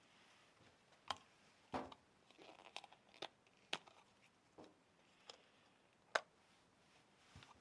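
End caps being pulled off HEPA filters one after another: a string of faint, sharp clicks and pops, about eight of them, roughly one a second.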